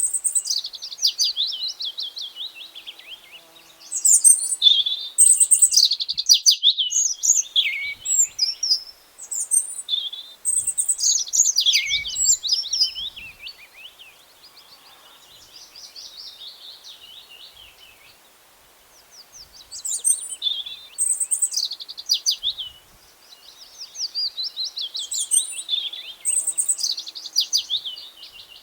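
Songbirds chirping and singing in quick high trills and chirps, several overlapping, coming in bursts with a quieter few seconds around the middle.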